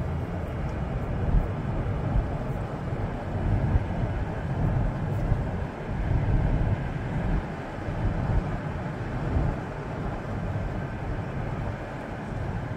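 Steady low rumble and hiss of a vehicle driving along a road, tyre and engine noise with no distinct events.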